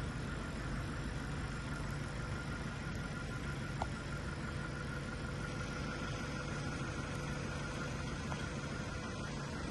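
An engine idling steadily: a constant low hum with an even noise over it, and a faint click about four seconds in.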